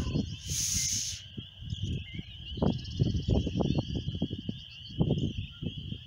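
Air hissing out of a frost-free yard hydrant's spout as water advances along a newly laid PEX line and pushes the air ahead of it: the sign that water is on its way. About a second in, the wide rushing hiss narrows to a steadier, thinner hiss as a thumb partly covers the spout.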